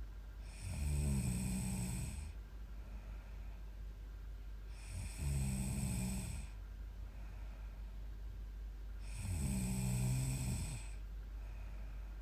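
A young woman snoring in her sleep: three loud, rasping snores about four seconds apart, each lasting over a second, with fainter breaths between them.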